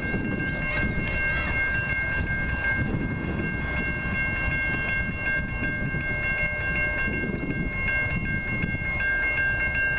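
An approaching train sounds its air horn as one long, steady chord of three notes, over the low rumble of the train.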